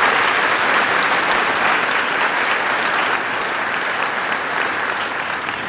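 A large audience applauding steadily for a veteran standing to be recognized; the clapping swells just before and fades away near the end.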